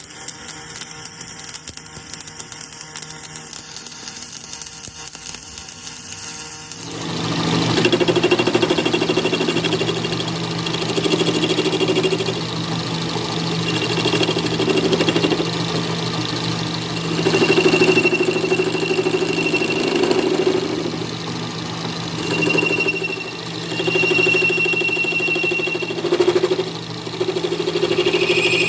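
Metal lathe running with a steady motor hum and a fast ticking. About seven seconds in, the cutting tool bites into the iron bar: the sound grows louder and rougher, with a high squeal of tool on metal that comes and goes.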